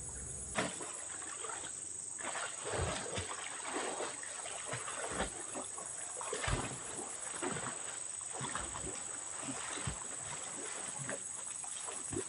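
Pond water splashing and sloshing in irregular strokes as people wade and swim through it, pulling a fish net.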